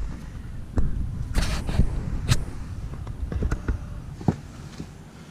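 Small clicks and knocks of parts being handled, with a short rustle of a rag wiping the oil filter cap.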